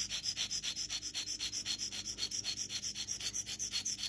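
Universal curette blade ground back and forth on an India sharpening stone in rapid, even scraping strokes, several a second. Firm pressure is on the toe third of a very dull blade.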